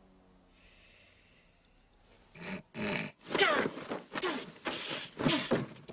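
A man clearing his sinuses. After a quiet start, a string of loud, rough snorts and hawks begins about two seconds in and keeps going.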